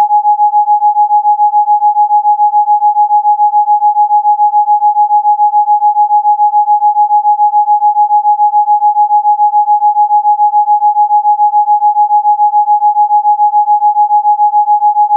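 Electronically generated Rife frequency tone: a single steady pure tone of mid-high pitch that pulses evenly in loudness several times a second.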